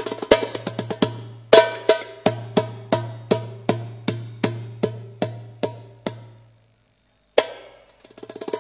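Darbuka played through a sound system's mixer: quick rolls of strokes, then evenly spaced single strokes about three a second, each ringing out with an echoing tail. The playing fades into a short pause, then comes one loud stroke and another quick roll near the end. A steady low tone runs under the strokes until the pause.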